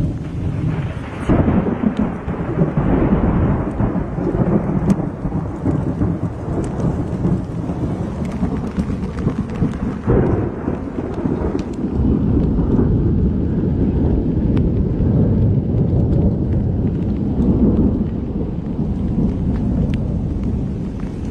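Thunder during a heavy thunderstorm: a sudden crack about a second in rolls into a long low rumble, with a second crash about halfway through, over steady rain.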